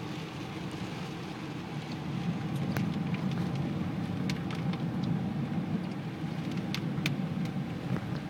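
A car driving, heard from inside the cabin: steady low road and engine rumble that swells slightly about two seconds in, with a few scattered sharp ticks.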